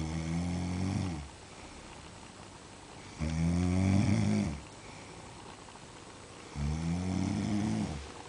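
Snoring: three long, low snores evenly spaced about three seconds apart, each dropping in pitch as it ends.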